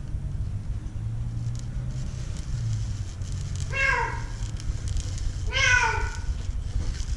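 Black-and-white cat trapped at the bottom of a deep light well, meowing twice, about four and about five and a half seconds in. Each meow lasts about half a second and rises then falls in pitch. A low steady rumble runs underneath.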